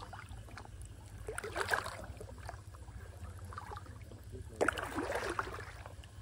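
Water sloshing and splashing as a person wades neck-deep through a muddy river, with two louder surges of splashing, one about a second in and a stronger one near five seconds in.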